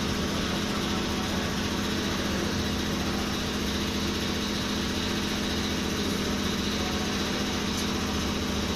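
A steady mechanical drone, like a motor running, unchanging throughout.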